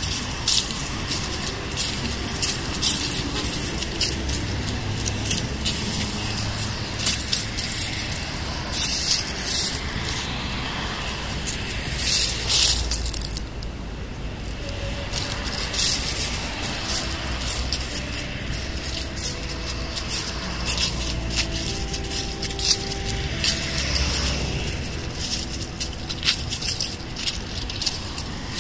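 Footsteps crunching and scraping through dry fallen leaves in an irregular crackle, over a low hum of distant traffic. A tune starts playing about halfway through.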